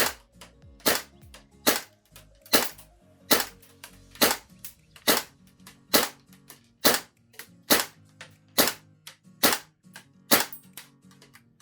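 GHK AKMSU gas-blowback airsoft rifle firing single shots at a steady pace, about one a second, each a sharp crack with a smaller click just after it.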